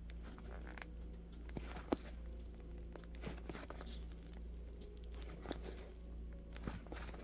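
Leather-gloved hands squeezing and flexing a warm rubber Traxxas RC tire on its plastic rim: scuffing and creaking with several short high squeaks that fall in pitch, over a faint steady low hum. The glued bead is still holding to the rim.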